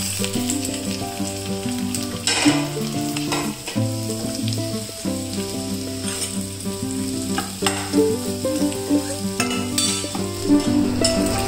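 Potato cubes sizzling in hot spiced oil in a steel kadai and being stirred with a steel spoon, with a steady frying hiss and a few sharp scrapes and clatters of the spoon against the pan. This is the sound of the potatoes being fried into the masala.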